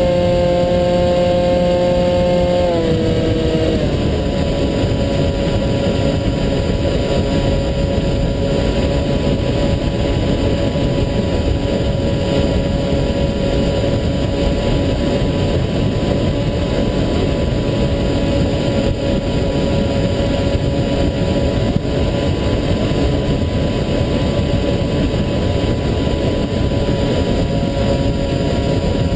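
Onboard sound of an HK Bixler RC plane's electric motor and pusher propeller, a steady whine over rushing wind noise. The whine steps down in pitch about three seconds in as the throttle is eased back, then holds steady.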